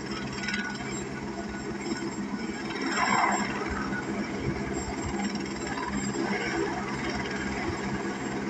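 Helicopter running nearby, a steady engine and rotor drone with a constant low hum, swelling briefly louder about three seconds in.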